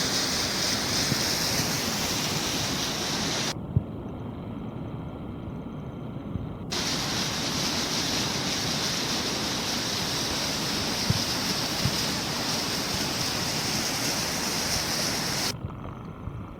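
Mountain stream rushing: a steady, full hiss of running water, which turns duller and quieter for about three seconds some four seconds in, and again near the end.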